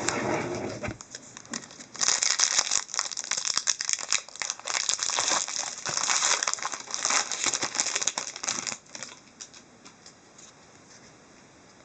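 Plastic wrapping crinkling and tearing as a sealed hockey card box and pack are opened by hand. The crackling is dense for several seconds, then dies down about nine seconds in.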